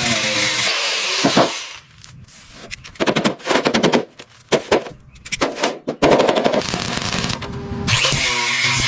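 Workshop power-tool noise: bursts of rapid rattling impacts, like an air tool, in the middle, between stretches of steady hissing machine noise.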